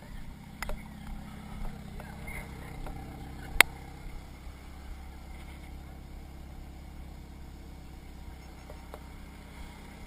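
Off-road Jeep's engine idling steadily, with a few light clicks and one sharp knock about three and a half seconds in.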